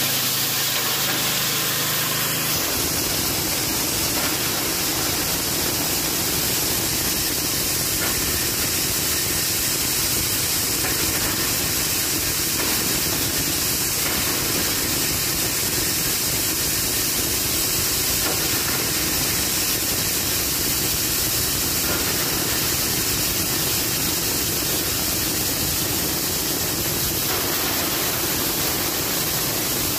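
Livestock feed chopper driven by a 6.5 HP Matrik petrol engine, running steadily while material is fed into its hopper. The engine and cutting noise blend into one even, continuous roar.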